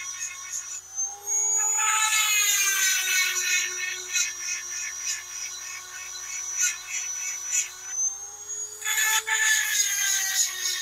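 EzzDoo handheld electric chainsaw sharpener running with a high whine while its grinding stone is worked over a chainsaw chain's cutters, rasping with regular ticks about twice a second. Its pitch rises about a second in, sinks near eight seconds, then rises again.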